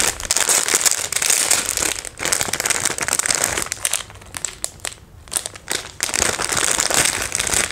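Crinkling and rustling of a clear plastic packet and tissue paper being handled while a necklace set is unwrapped, in irregular bursts with a quieter spell in the middle.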